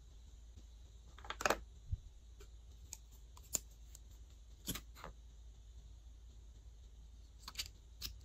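Small plastic containers being handled and twisted open: scattered sharp plastic clicks and taps, the loudest a quick cluster about a second and a half in, followed by a dull knock.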